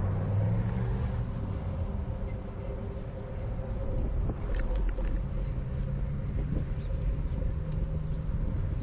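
Road traffic: car engines humming and passing over a steady low rumble. A few short clicks sound about halfway through.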